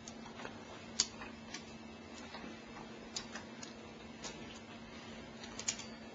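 Faint, irregular light clicks and taps of an Allen wrench and metal faucet handle being worked as the handle's set screw is tightened, over a steady faint hum.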